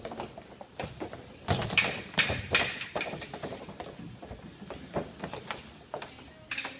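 Fencing footwork: a burst of rapid foot stamps on the strip, heaviest from about a second and a half to three and a half seconds in, with another sharp stamp near the end. Short high squeaks or light metallic clicks of sneakers and blades come in the first second.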